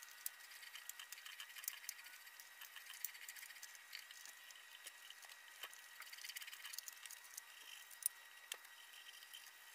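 Faint, irregular soft ticks and dabs of a paintbrush working thick rubberized elastomeric paint onto a plywood box, with a faint steady high tone underneath.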